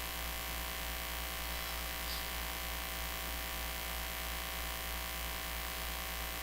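Steady electrical mains hum, a low buzz with a stack of even overtones, holding at one level with no other sound over it.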